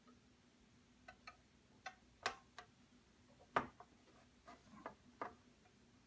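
Light plastic clicks and taps from a scratch-built model's hood being worked on its small hinges and latch. There are about a dozen separate clicks, and the sharpest comes a little past halfway.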